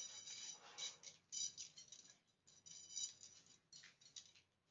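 Thin metal rods clinking and rattling faintly against each other and a sheet-metal tray as they are handled and gathered up by hand: a scatter of short, ringing metallic clinks in small clusters.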